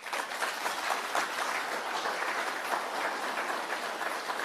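Audience applauding: many hands clapping at an even, steady level.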